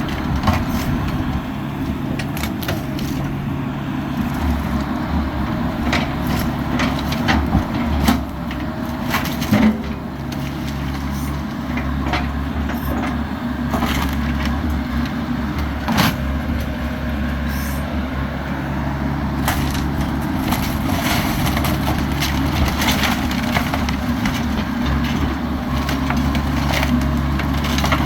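Bobcat E85 excavator's diesel engine running steadily under load while it crushes and breaks up the wooden wreckage of a manufactured home. Wood cracks and splinters sharply and often, loudest about eight to ten seconds in and again around sixteen seconds.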